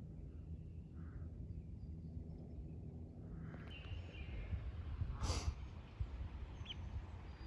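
Outdoor ambience: a steady low rumble like wind on the microphone, with a few faint bird chirps and one short rushing noise about five seconds in.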